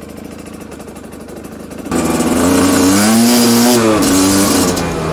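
A GasGas 250 dirt bike's engine running at low speed, then opened up about two seconds in. The engine note climbs and falls back as the bike accelerates, with wind rushing over the camera's microphone.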